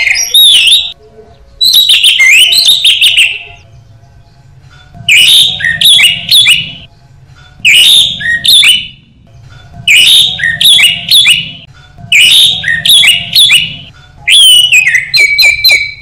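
Orange-headed thrush (anis merah) in full, persistent song: about seven loud phrases of rapid whistled notes and quick slurs, each a second or two long, separated by short pauses.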